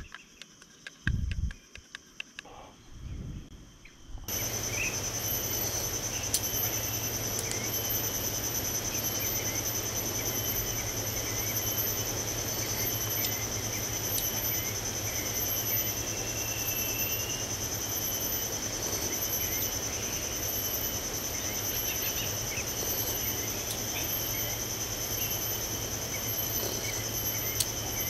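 A few knocks from camp gear being handled in the first four seconds, then a steady, high-pitched insect chorus over a constant outdoor hiss and a low steady hum.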